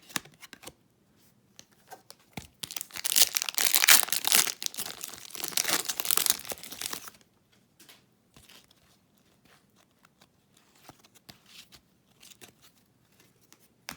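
A foil trading card pack being torn open and crinkled for about four seconds, then faint soft clicks of cards being handled.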